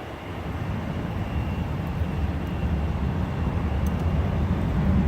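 Low rumble of a jet aircraft, steadily growing louder as it comes nearer.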